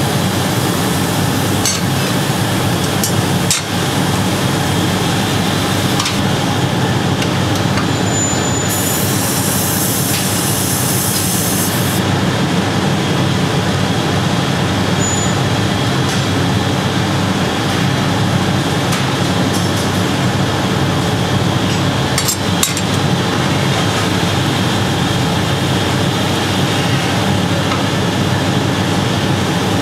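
Steady loud roar of a glassblowing workshop's gas furnaces and blowers, with a couple of sharp metal clicks from hand tools, once a few seconds in and again later, and a brief high hiss about nine seconds in.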